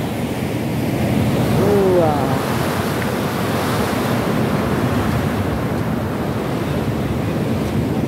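Ocean surf washing and breaking around pier pilings below: a steady, loud rush of waves mixed with wind on the microphone. A voice is heard briefly about two seconds in.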